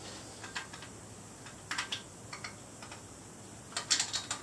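A few light metallic clicks of rocker arms and valvetrain parts being handled on a big-block V8's cylinder head, then a quicker run of ratchet clicks near the end as the rocker nuts start to be loosened.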